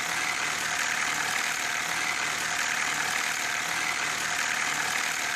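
Car engine running steadily with the noise of a loose timing chain, which could come from worn spring-loaded tensioners letting the chain rub against the inside walls of the engine.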